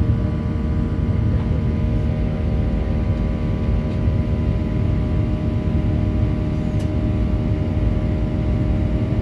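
Jet airliner engines running steadily, heard from inside the cabin: a heavy, even low rumble with several steady tones over it.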